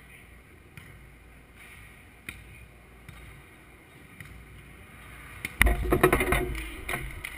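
Beach volleyball play: a few faint ball contacts, then about five and a half seconds in a sudden loud knock and a second of rattling and thumping close to the microphone, as the net and the post carrying the camera are struck.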